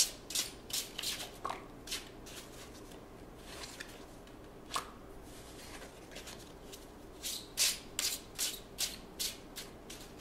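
Deck of tarot cards shuffled by hand: quick papery swishes of cards sliding against each other, about three a second. A busy spell at the start, a sparser stretch in the middle, and a busy spell again near the end.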